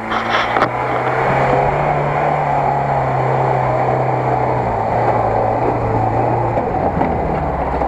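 UAZ-469 off-roader's engine running steadily under load as it drives through wet grass and mud. Its note steps down a little around the middle and fades about a second before the end.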